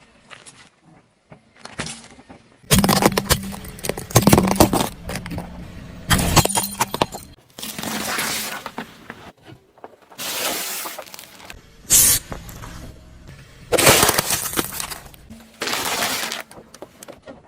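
Objects cracking and breaking as they are crushed under a car's tyre, in repeated crunching spells, over background music.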